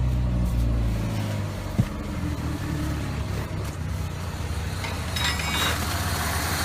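1997 Pontiac Sunfire's four-cylinder engine running roughly just after its first start in over two years of sitting. Its steady low hum turns uneven about a second in, with one sharp click a little later.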